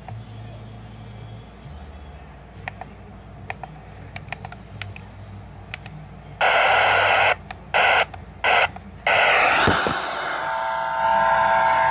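Eton Zoneguard weather radio's speaker hissing with static, no station coming in. A few faint clicks of its buttons come first; the loud static starts about halfway in, cuts out three times in quick succession, then runs on steadily.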